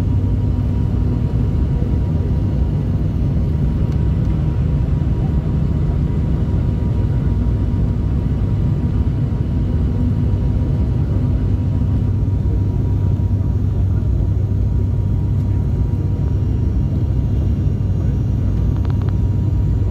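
Steady drone of a turboprop airliner's engines and propellers heard inside the passenger cabin, a deep hum with a fainter steady whine above it.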